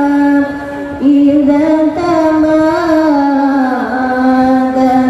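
A single high voice singing a slow, drawn-out Islamic devotional chant through a large PA loudspeaker system. It holds long notes with slow pitch turns and pauses briefly about a second in.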